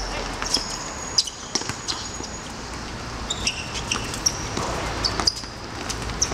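Players' shoes squeaking on a hard court surface during a football game, with several sharp thuds of the ball being kicked and struck.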